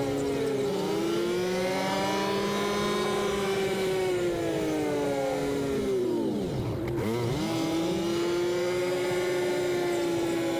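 Yamaha Wolverine side-by-side's engine running while driving: the engine note falls and rises with the throttle, drops sharply to a low point as it slows about six to seven seconds in, then climbs again as it pulls away and holds steady.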